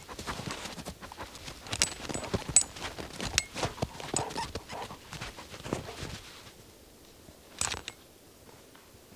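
Footsteps crunching through snow at a walking pace, stopping about six and a half seconds in, with one more crunch about a second later.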